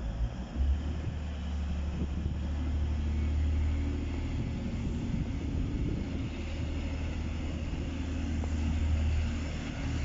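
Low, steady engine drone of a diesel train running, starting about half a second in.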